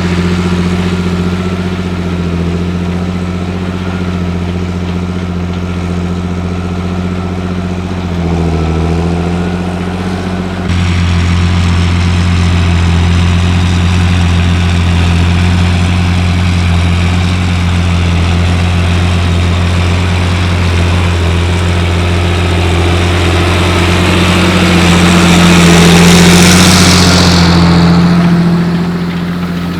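John Deere 8300 tractor's six-cylinder diesel engine running steadily under load while pulling a seven-furrow plough. The sound shifts abruptly about ten seconds in and grows louder near the end, with a falling hiss.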